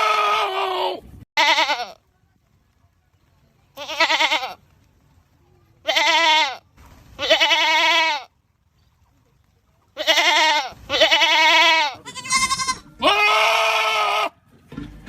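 Goats screaming: a series of about nine loud, quavering bleats, each lasting under a second and a half, separated by short silences.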